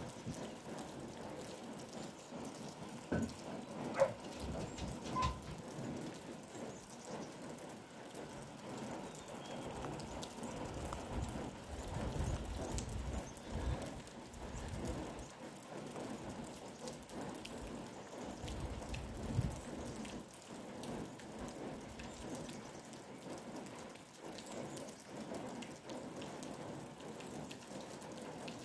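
Light rain pattering steadily, with a few faint knocks in the first few seconds.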